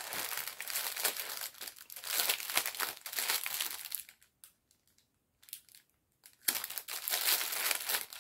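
Plastic packets of round diamond-painting drills crinkling as they are handled. It stops for about two seconds midway, then resumes.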